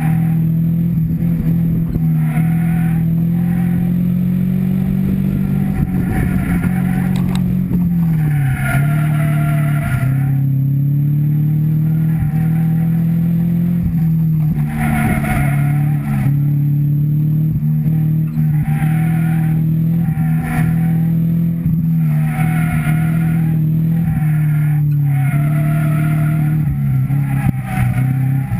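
Subaru Impreza 2.5RS's flat-four engine driven hard through an autocross course, its pitch rising and falling steadily as the driver accelerates and lifts between cones, with a marked drop about eight seconds in.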